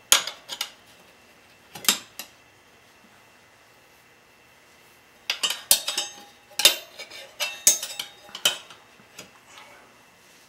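Metal tyre irons clinking and knocking against a spoked motorcycle wheel's rim while the tyre bead is levered onto it by hand. A few sharp clinks come in the first two seconds, then a pause, then a run of clinks and knocks from about five to nine seconds in, some ringing briefly.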